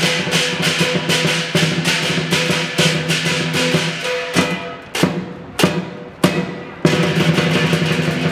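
Lion dance percussion: a large drum beaten in a fast, dense rhythm with clashing cymbals. About halfway through, the rolling beat breaks into a few single accented strikes that ring out, then the fast beat comes back near the end.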